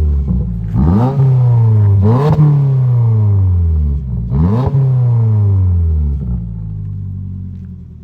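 2022 Subaru WRX's turbocharged 2.4-litre flat-four revved three times through a newly installed Aeroflow Dynamics axle-back exhaust, its pitch rising sharply with each blip and falling back after, then settling to idle near the end.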